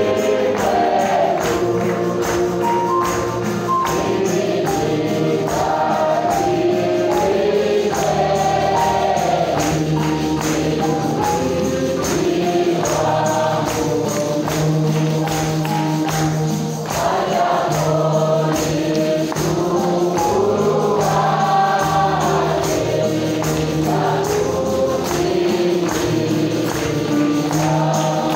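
A group of voices singing a church worship song together, over a steady percussion beat and a low bass line.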